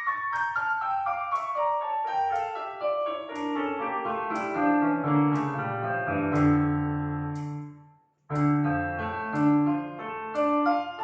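Piano music: a flowing run of quick notes that steps downward in pitch, stops briefly about eight seconds in, then starts again.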